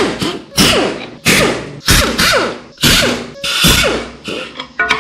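A run of sharp metal knocks, about eight in five seconds, each ringing briefly with a falling tone: tools striking engine parts during an LS engine teardown.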